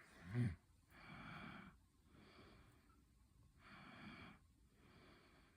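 A man breathing audibly close to the microphone: a short nasal snort near the start, then soft, even in-and-out breaths about every second and a half. He says he has breathing problems and that his breathing can be heard in his videos.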